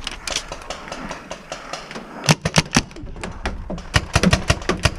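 Paintball fire: sharp pops and smacks in quick irregular strings, several a second, starting about two seconds in.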